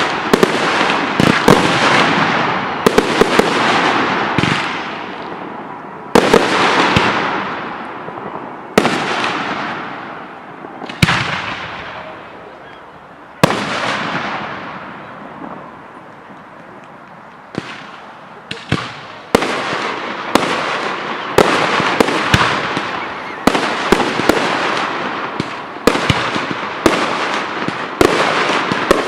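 Professional fireworks display: aerial shells bursting with sharp bangs, each followed by a long fading tail. The bangs come about every two seconds at first, thin out to a lull in the middle, then come thick and fast toward the end.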